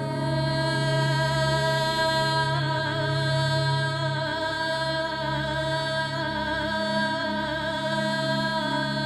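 Sustained music: steady drone-like tones held over a low bass, with a wavering sung or chanted line.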